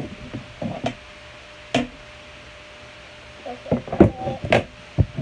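A few short knocks and thumps of plastic slime jars being picked up and set down on a table, several coming close together near the end, over a faint steady hum.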